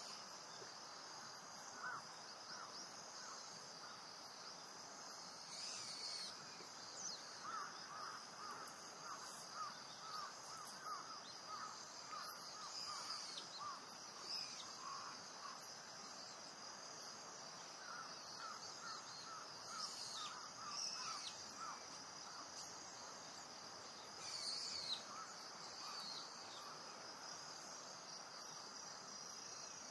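Faint natural ambience: a steady high insect chorus, with scattered bird calls, including two runs of short, evenly repeated notes and a few higher chirps.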